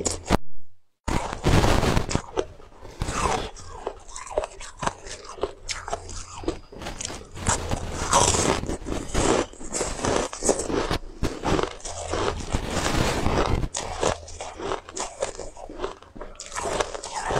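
Biting into and chewing a frozen ice cookie: a run of crisp, cracking crunches close to the microphone.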